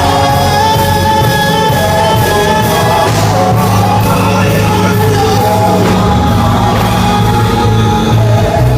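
Loud live band music with a singer's voice over a steady beat, as at a sound check.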